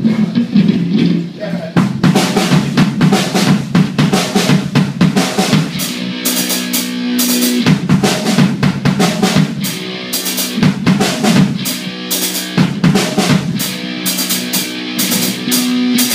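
Live rock band instrumental intro: a drum kit playing a busy beat of kick, snare and rimshots, with cymbals joining about six seconds in, over held low electric notes that shift pitch every few seconds. No singing yet; the vocal comes in just after.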